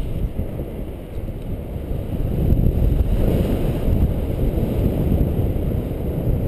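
Wind from the airflow of a tandem paraglider in flight buffeting the harness-mounted camera's microphone: a loud, uneven low rush that rises and falls in gusts.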